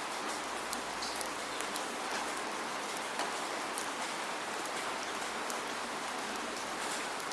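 Steady rain falling, with no thunder: an even hiss with many distinct drops pattering on a surface.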